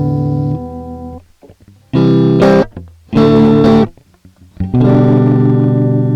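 Electric guitar played through a Comix! compressor pedal. A chord rings at first, then two short, loud chord stabs are cut off, and a last chord is left to ring on with long, evenly fading sustain.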